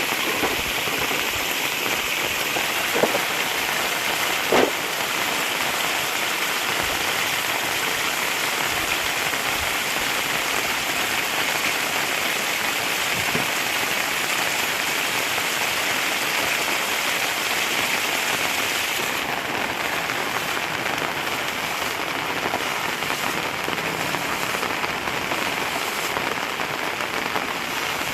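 Steady rain falling, with two short knocks a few seconds in.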